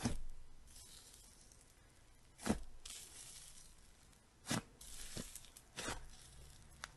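Hands squeezing and pulling apart a thick, fluffy slime: about six sharp pops, several of them followed by a fine, high crackling hiss as the slime tears and stretches.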